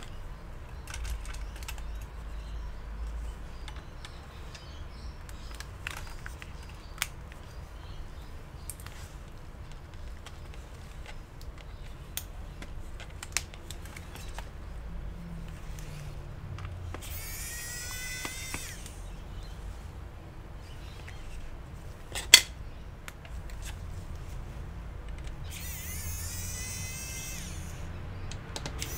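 A small electric precision screwdriver whirs briefly twice, a bit past the middle and near the end, backing out laptop screws. Between them, small parts and screws give light clicks, with one sharp click.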